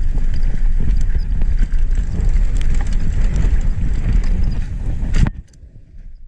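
Downhill mountain bike riding fast down a dirt trail, heard from the rider's action camera: wind buffeting the microphone, tyres rumbling over the dirt and the bike rattling with frequent sharp clicks. The sound cuts off suddenly about five seconds in.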